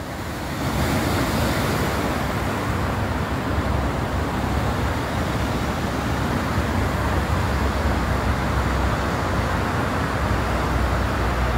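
Rough sea churning white over the rocks below, a steady rushing noise with a low rumble.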